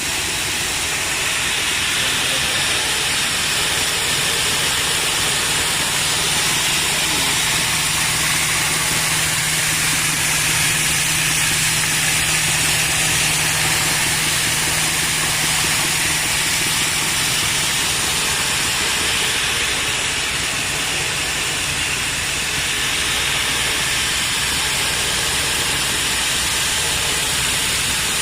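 Rice milling machine running steadily: an even rushing, hissing noise with a low hum that drops away about halfway through.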